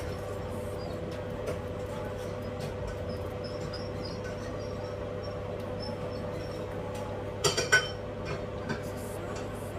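Cookware clinking: two or three quick sharp clinks about seven and a half seconds in, over a steady low hum.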